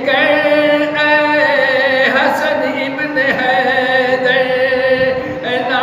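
A solo male voice chanting a devotional recitation into a microphone, in long held notes with a wavering pitch.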